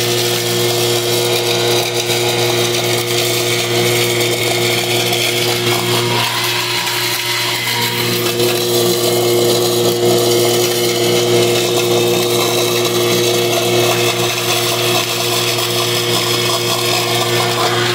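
Green shredding machine running steadily with a constant motor hum while its blades chop hand-fed styrofoam into small beads.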